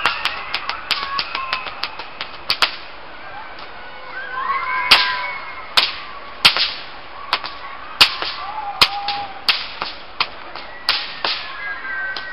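A long whip being cracked over and over. A quick run of lighter cracks comes first, then a short pause, then a string of louder single cracks about a second apart.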